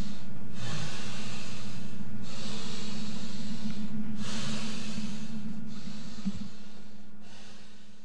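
A man breathing heavily and loudly, about five long breaths each lasting a second and a half or so, over a steady low hum. It fades away over the last few seconds.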